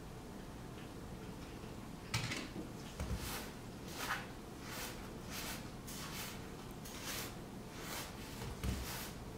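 Hands squeezing and kneading sugar moistened with syrup in a stainless steel pot, working it into bee sugar cake: a run of short scrunching strokes, about one and a half a second, starting about two seconds in, with a few low knocks among them.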